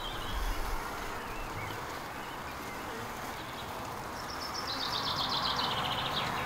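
Steady hum of honeybees around an opened hive. About four and a half seconds in, a songbird sings a quick descending trill lasting about two seconds.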